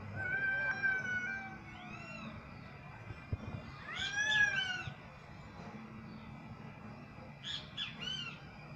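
Domestic cat yowling, the calling of a female cat in heat: one long held call near the start, a short arching call, a louder rising-and-falling call in the middle, and a quick run of short calls near the end.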